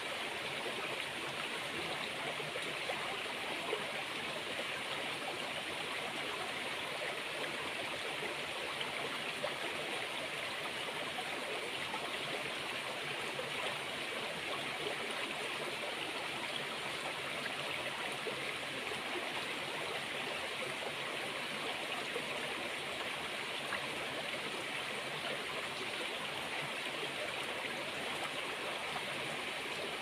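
Stream water running steadily, an unbroken rush of flowing water.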